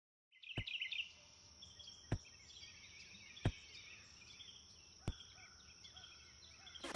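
Soccer ball being juggled: four short thuds of the ball striking the player, about a second and a half apart, over faint birdsong and a steady high insect drone.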